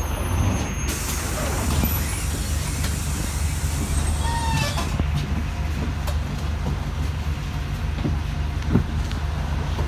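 City bus engine idling with a steady low hum, heard from inside the cabin while the bus stands still; a single short knock near the end.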